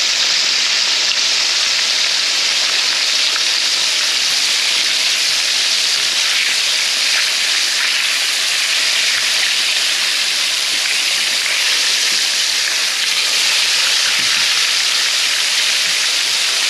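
Breaded walleye fillets shallow-frying in hot oil in a frying pan: a loud, steady sizzle.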